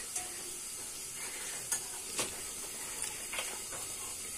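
Hot oil sizzling steadily in a small pan on a gas stove as bara (lentil-batter fritters) fry, with a few light clicks of a utensil.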